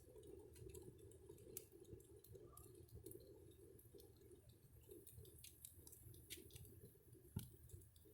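Faint campfire crackling: scattered small pops and snaps from the burning wood, with one louder pop about seven seconds in.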